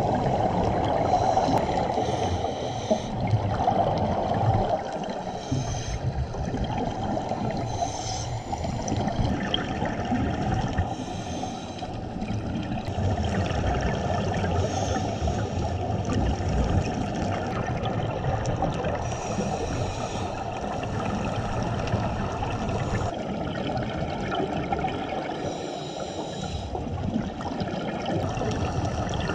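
Underwater sound picked up through a GoPro's waterproof dive housing: a steady, muffled rush of water, with bubbling hiss that comes and goes.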